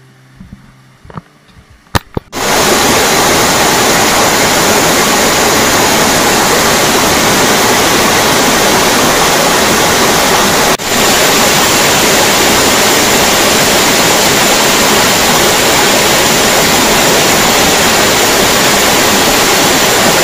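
Waterfall: a loud, steady rush of falling water that starts abruptly about two seconds in, after a short quiet stretch with a few faint clicks.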